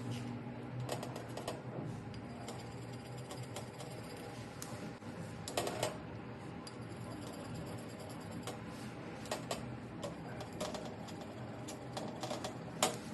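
Light, scattered clicks and taps of small mixing implements against a blood-typing plate as drops of blood are stirred into the serums, over a faint steady room hum. A slightly louder cluster of taps comes a little before halfway.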